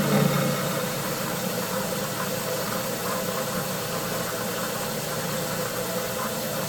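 A machine running steadily with an even mechanical hum and a constant noisy whir.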